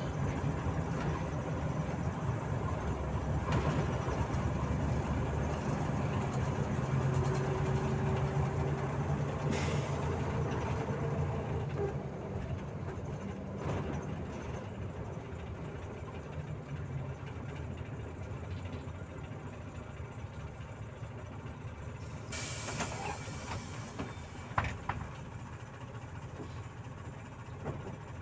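Volzhanin-5270 city bus heard from inside the passenger cabin: steady engine and road drone while under way, stronger over the first dozen seconds and then easing off. A short hiss of air comes a little over two-thirds of the way through.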